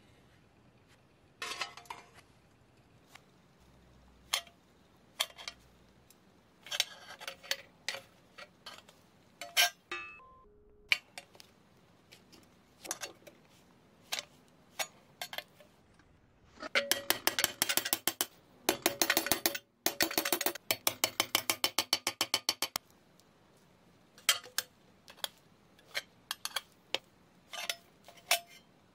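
Small metal parts clinking and tapping in scattered clicks, with a run of rapid, even clicks, about ten a second, for some six seconds in the middle, broken briefly once.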